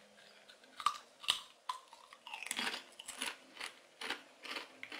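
A Doritos Cheese Supreme corn tortilla chip being bitten, with a couple of sharp snaps in the first second and a half. It is then chewed, crunching about twice a second.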